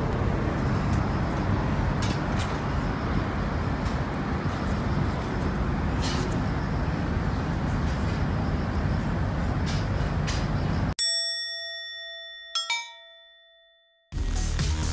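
Steady low outdoor background noise, which cuts out abruptly; a bell-like chime sound effect then rings and slowly fades, struck again about a second and a half later. Music starts near the end.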